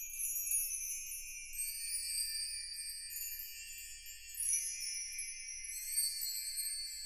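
Outro music of high, tinkling chime-like tones, with no bass or voice.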